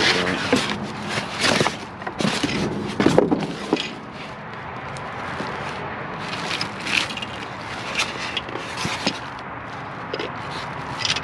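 Cardboard box and its packaging being handled and opened: scraping, rustling and sharp knocks, busiest in the first few seconds, then sparser knocks over a steady outdoor background.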